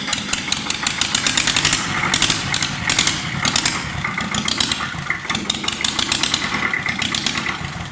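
Mitsubishi KE75 diesel engine from an Iseki mini tractor running on a bench test, with a loud, fast, steady clatter. The sound begins to die away at the very end.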